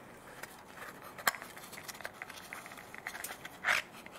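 A small cardboard parts box being handled and opened by gloved hands: light scraping and rustling, with one sharp click about a second in and a louder scrape near the end.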